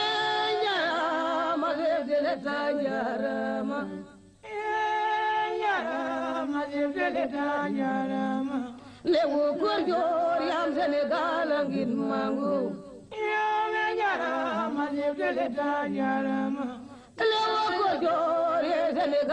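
Unaccompanied chanted singing in repeated phrases of about four seconds, each opening on a held note and then wavering and falling in pitch, with short breaks between the phrases.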